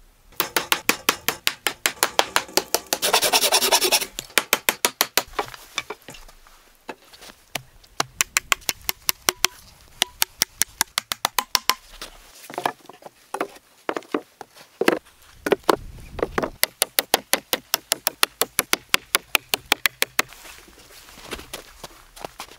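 Hand saw cutting pallet wood in quick, rasping back-and-forth strokes, several a second. The strokes come in runs, with short breaks about a third of the way in and around the middle.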